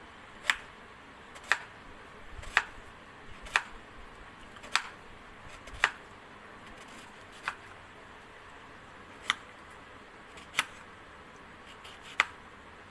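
Kitchen knife slicing through a guava and tapping the cutting board: ten sharp taps, one per slice, about a second apart at first and spacing out toward the end.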